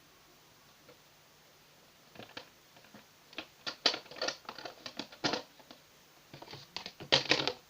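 Slime squeezed and worked in the hands. It is quiet for about two seconds, then gives off irregular runs of small sticky clicks and pops.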